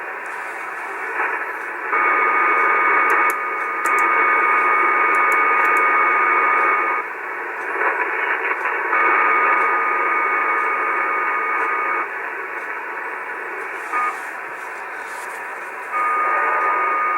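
Icom 730 receiver's audio on 3800 kHz (75 meters): band hiss broken by an unidentified buzzing noise that switches on and off every few seconds like a beacon. Each burst is louder and carries steady tones.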